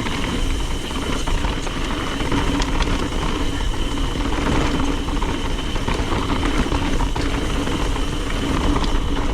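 Mountain bike rolling down a dirt trail: tyre noise, small knocks and rattles from the bike, and wind buffeting the action camera's microphone, with a faint steady buzz running under it.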